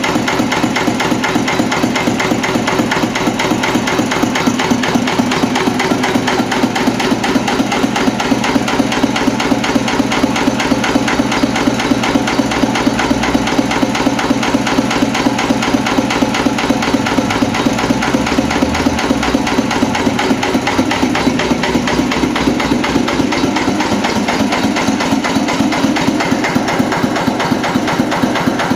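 National DSSH single-cylinder oil (diesel) stationary engine running steadily, a fast, even knocking clatter that keeps up without a break.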